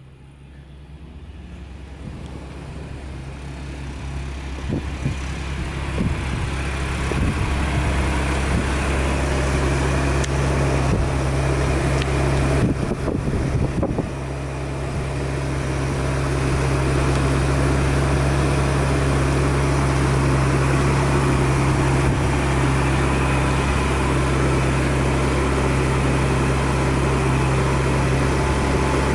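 Motor vehicle engine idling: a steady low hum that grows louder over the first fifteen seconds or so, with a brief dip about thirteen seconds in.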